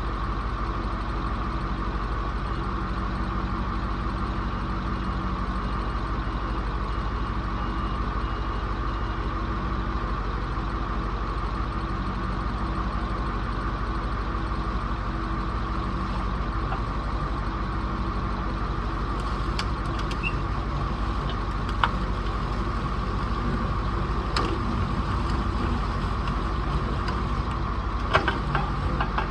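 A vehicle engine running steadily at an even speed, with a few sharp clicks or knocks in the last third.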